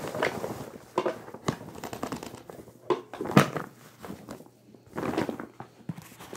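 Rustling and crinkling of a bag being handled, with scattered sharp knocks.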